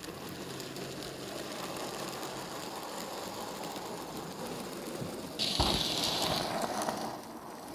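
OO9 narrow-gauge model train running on the layout, a steady small-motor whir with wheel rattle on the track. It gets louder just over five seconds in, with a low thump, then fades back down.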